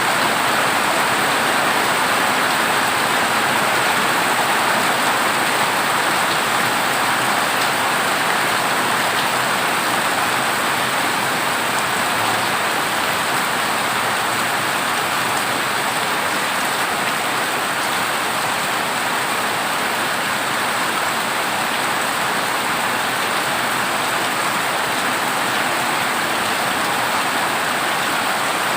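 Heavy rain drumming steadily on a corrugated zinc roof, an even hiss with no thunder.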